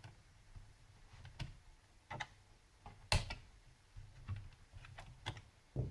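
Irregular light clicks and taps of small parts as the laptop's RAM module is unclipped and lifted out, about nine in all, the sharpest about halfway through.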